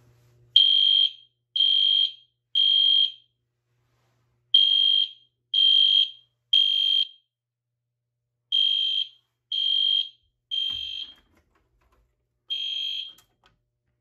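Edwards ceiling-mount LED horn strobe sounding a fire alarm set off by a pulled pull station: high-pitched beeps in the temporal-three evacuation pattern, three half-second beeps a second apart, then a pause. Three full groups sound, then one more beep before the horn stops.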